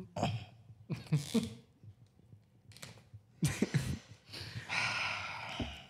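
Men's voices close on microphones in a quiet room: a few short mumbled sounds, then a long breathy exhale near the end.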